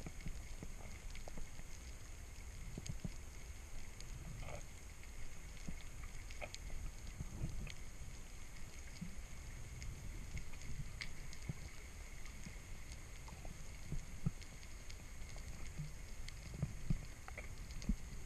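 Sea water moving: a steady low rumble with scattered small clicks and knocks.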